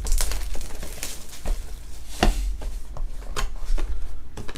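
Trading cards being handled and set down on a table: a few irregular light taps and slides, one louder tap a little past the middle, over a steady low hum.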